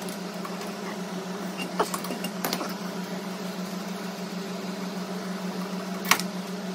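A few sharp metal clicks as the steel bolts holding a brake caliper bracket are loosened with a wrench and turned out by hand. The loudest click comes about six seconds in. A steady mechanical hum sounds under them.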